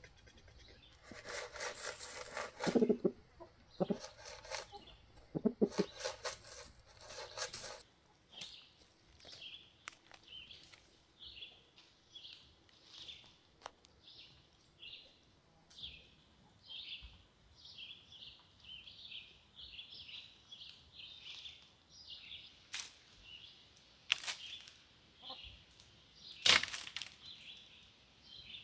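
Chickens rustling and flapping their wings inside a coop for the first several seconds, then a long run of short, high chirps, about two a second, with a few sharp knocks near the end.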